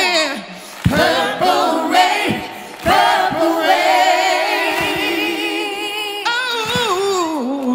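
Several voices singing long, wordless notes with vibrato, choir-like and with little instrumental backing. The sound dips briefly about half a second in and again near three seconds.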